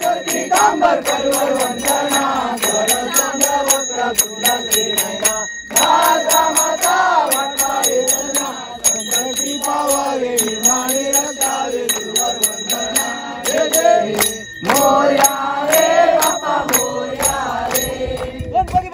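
A group of voices singing a devotional Ganesh aarti to a steady rhythm of hand claps.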